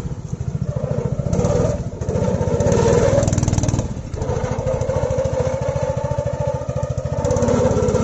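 Small engine of a tracked mini crawler vehicle running with a rapid, even putter. It swells around three seconds in, drops briefly about a second later, then holds steady.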